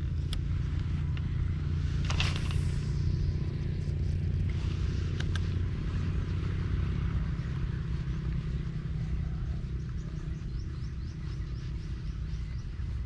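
A steady low motor drone runs throughout, with a few sharp clicks near the start and about five seconds in.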